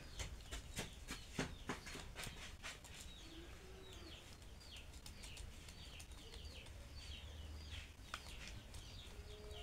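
A run of light clicks in the first few seconds as a screwdriver and wire ends are worked at the terminal screws of a contactor's thermal overload relay. Small birds chirp faintly and repeatedly in the background, with short falling calls.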